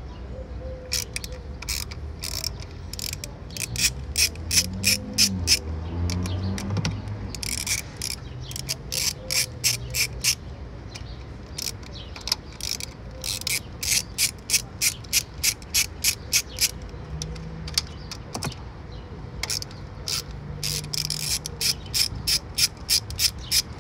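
Hand ratchet clicking in quick runs, with short pauses between strokes, as it loosens the bolts that hold the fuel rail to the injectors.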